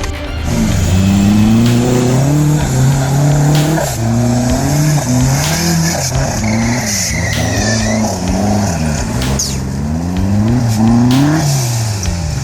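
Off-road 4x4 engine revving hard, its pitch rising and falling again and again as the driver works the throttle, with scattered knocks.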